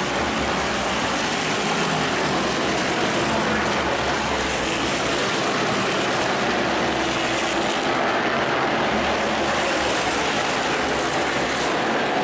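NASCAR Whelen Modified race cars' V8 engines at racing speed on the track: a steady, continuous engine drone from the pack.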